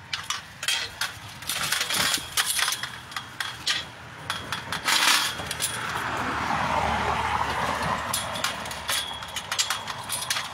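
Irregular sharp clicks and clinks of handling noise on a hand-held phone carried while walking, most dense in the first half and again near the end. In the middle a car passes, a whoosh that swells and fades over about three seconds.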